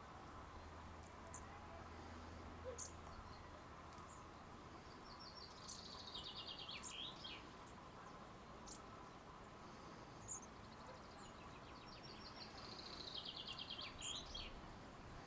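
Faint birdsong over quiet background: a songbird sings the same phrase twice, about seven seconds apart. Each phrase is a quick run of repeated high notes stepping downward and ending in a lower flourish, with a few short high chirps in between.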